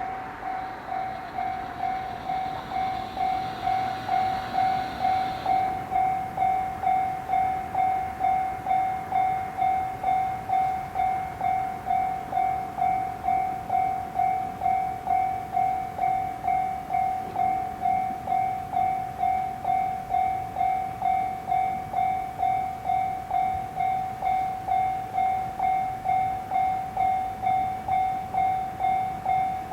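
Japanese railway level crossing warning bell ringing, one steady tone repeating evenly about twice a second.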